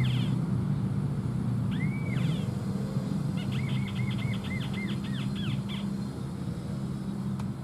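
A bird calling: a single arched whistled note about two seconds in, then a quick run of about eight similar notes, over a steady low hum.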